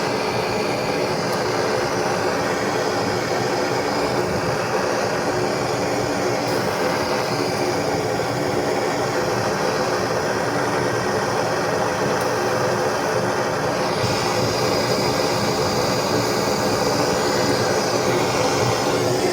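Gas soldering torch burning with a steady roaring hiss while copper pipe is soldered; the hiss shifts slightly about two-thirds of the way through.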